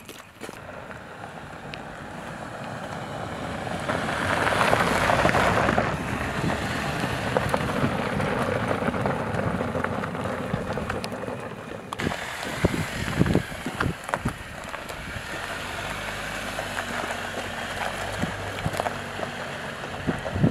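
Jeep Cherokee Trailhawk driving on a dirt and gravel trail: tyre crunch on loose stones with engine and wind noise, loudest about four to six seconds in. After a break about twelve seconds in, a few short thumps.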